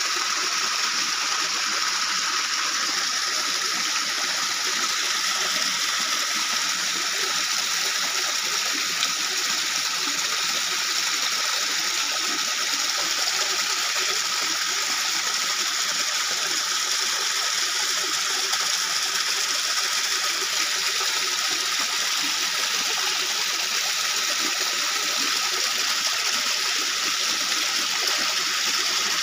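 Shallow rocky stream pouring over stones in a small cascade: a steady rush of water.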